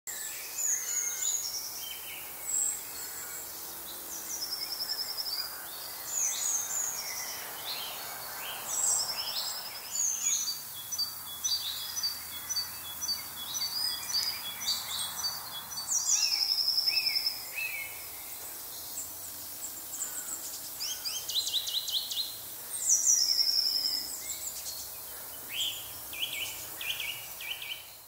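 Several woodland songbirds singing at once, a mix of fast trills and repeated high chirps overlapping throughout. A faint hum of distant road traffic runs underneath.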